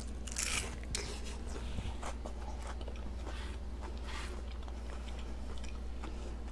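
Chewing a bacon cheeseburger, with a crunchy bite about half a second in and several smaller crunches as the chewing goes on.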